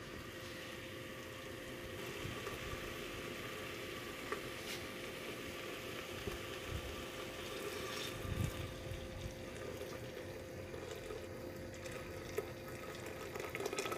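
Boiling water being poured from a pan into an aluminium pressure cooker over beef ribs and vegetables, splashing and bubbling, with two light knocks, one about a third of the way in and one near the end.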